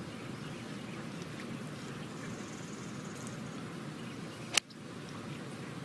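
A golf club striking the ball on a full fairway swing: a single sharp crack of impact about four and a half seconds in, over low steady outdoor background noise.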